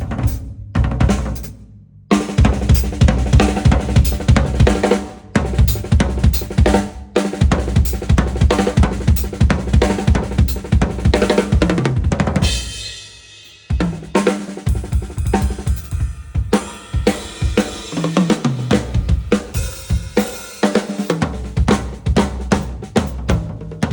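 Drum kit played in fast rhythmic patterns: kick drum, snare, hi-hat and cymbals. There is a short break about two seconds in, and a cymbal wash without kick about halfway through.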